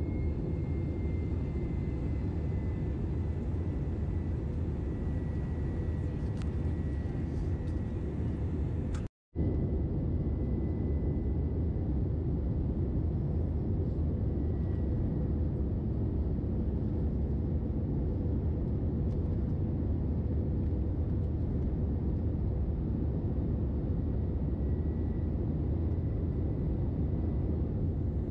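Steady cabin noise of an Airbus A321-211 in flight, heard from a window seat beside the wing: the low rumble of the CFM56 engines and rushing air, with a faint thin tone over it. The sound cuts out completely for a split second about nine seconds in.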